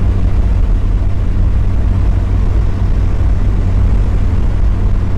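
Mazda Miata's four-cylinder engine and road noise while cruising at a steady speed: a constant low drone holding one pitch with a hiss of tyres on the road.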